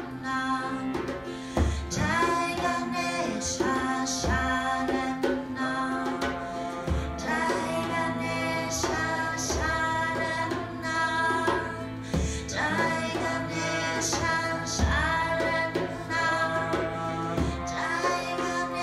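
A woman singing a devotional chant over a steady harmonium drone, with ukulele and low frame-drum beats every second or two.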